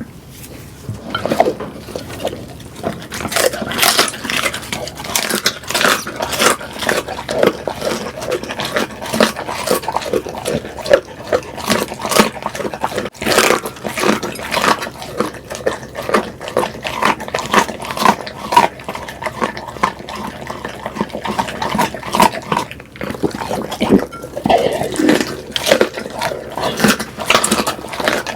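A pit bull eating close to the microphone: a rapid, uneven run of wet chewing and smacking clicks, with short pitched sounds from the dog mixed in.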